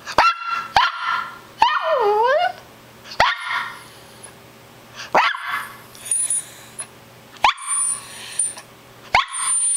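Small poodle barking in high-pitched barks, about seven of them at uneven intervals. One, about two seconds in, is drawn out, its pitch dipping and then rising again.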